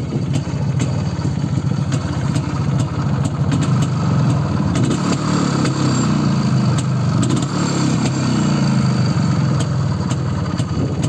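Single-cylinder two-stroke engine of a 1984 IZh Planeta 3 motorcycle idling, running a little stronger around the middle. It has a freshly rebuilt carburettor and newly set ignition, and runs on premix with a little more oil than the usual 1 litre to 40 litres of petrol, a slightly rich mixture.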